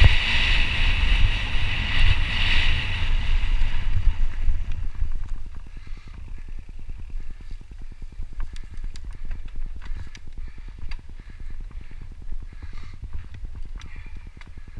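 Mountain bike descending a dirt trail. For the first few seconds wind rushes loudly across the microphone. After about five seconds it drops to the quieter sound of tyres rolling on dirt, with fast fine ticking and scattered sharp clicks and rattles.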